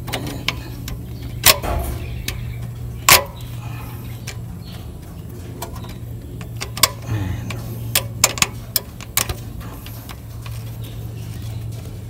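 Scattered sharp clicks and taps, about seven in all and several bunched together past the middle, as a metal brake-line fitting is handled and threaded back onto a clutch slave cylinder by hand. A steady low hum runs underneath.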